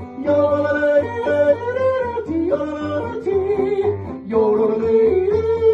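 Yodeling with guitar accompaniment, the voice jumping back and forth between low and high notes.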